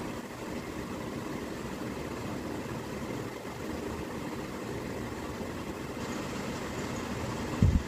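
Steady low mechanical hum, with one brief low thump just before the end.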